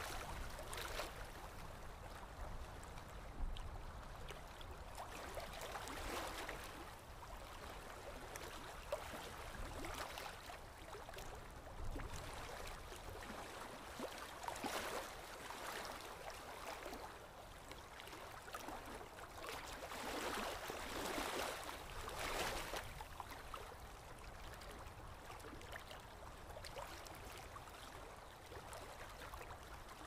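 Faint water lapping in slow, irregular washes that swell every few seconds, with a low wind rumble underneath.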